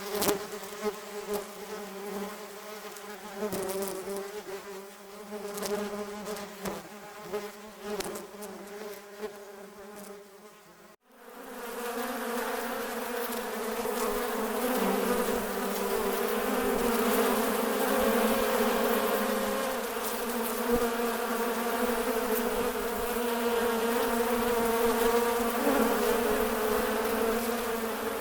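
Wasps buzzing, a buzz that swells and falls in loudness as they fly about. About eleven seconds in it fades out, then a louder, steadier buzzing takes over.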